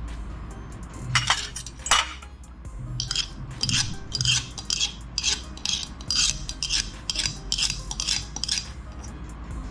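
Meat grinder crunching through food: two sharp cracks, then a quick run of short crunching, clattering strokes about two to three a second, over a steady low hum.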